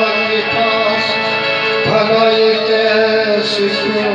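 Live qawwali music: a male singer holds a long, slightly wavering note over the steady drone of a harmonium.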